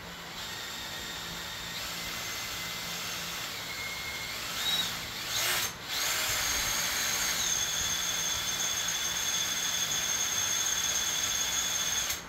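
Power drill running and drilling holes in a solar-panel mounting frame, its motor whine shifting in pitch. It stops briefly about five and a half seconds in, then runs steadily again until near the end.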